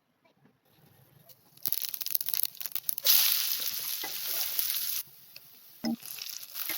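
Kitchen cooking sounds: scattered crackling, then a steady hiss that cuts off abruptly about five seconds in, followed by a short clatter and more crackling near the end.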